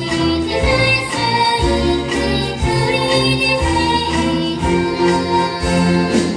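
Children's choir singing a song over instrumental accompaniment, with held notes and a steady bass pulse.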